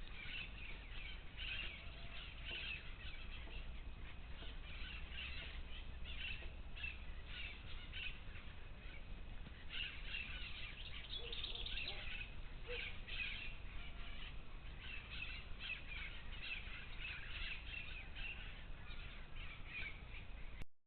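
Parrots squawking and chattering: many short, overlapping calls that come in busy clusters throughout.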